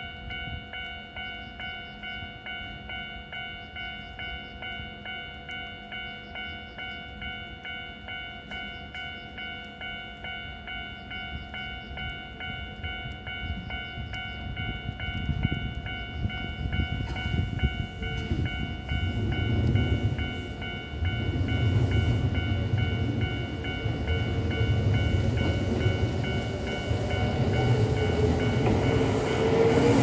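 Japanese level-crossing warning bell ringing in a quick, steady ding-ding rhythm. Under it a Kintetsu electric train approaches: the rumble of its motors and wheels grows from about halfway in and is loudest at the end as the 1233 series and 8600 series train reaches the crossing.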